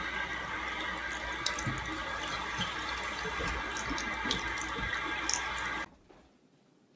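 Water running from a bathroom faucet into a sink, a steady stream with a few sharp clicks; it stops abruptly near the end.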